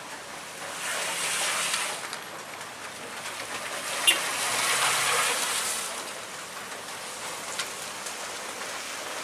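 Steady rain hiss with car tyres swishing through water on wet asphalt; the hiss swells twice as the car rolls through, with a single sharp tick about four seconds in.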